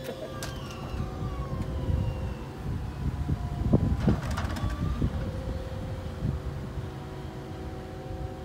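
Hi-rail pickup truck running slowly along the rails: a low engine rumble with a few knocks about four seconds in, and steady tones plus a slowly falling tone in the background.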